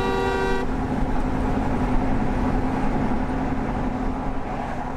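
A vehicle horn sounding a chord and cutting off about half a second in, followed by steady engine and road noise of a vehicle driving in traffic, which gets quieter near the end.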